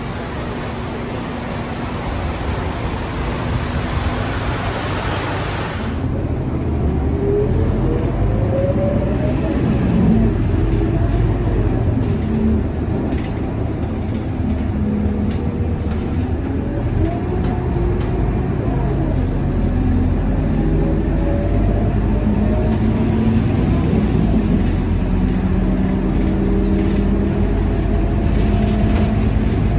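Scania K230UB city bus heard from on board, its diesel engine and automatic gearbox running under a steady low rumble, the pitch rising and falling again and again as the bus pulls away, accelerates and shifts gear. The first few seconds, before an abrupt change, carry a loud hiss over the rumble.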